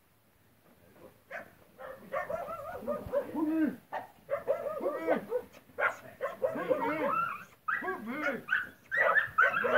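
A dog barking and yelping in quick runs of short calls, starting about a second in and growing louder toward the end.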